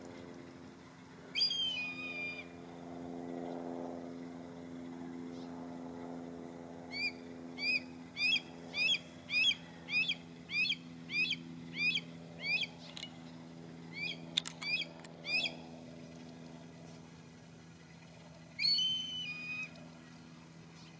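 Red-tailed hawk calling from a perch. A call about a second in is followed, from about 7 s, by a run of a dozen or so short repeated calls, roughly one and a half a second, and one more call like the first near the end. A steady low hum lies underneath.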